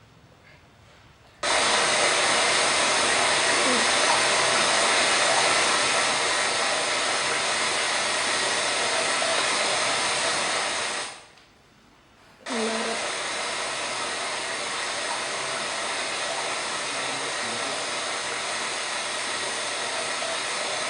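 Sound effect of rushing water, a steady even hiss like heavy rain or a waterfall. It plays for about ten seconds, breaks off for about a second, then plays again.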